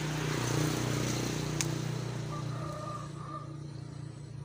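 A motor vehicle's engine passing nearby: a steady hum that swells over the first second and then slowly fades. About a second and a half in comes one sharp snip of pruning shears cutting through a grape bunch's stem.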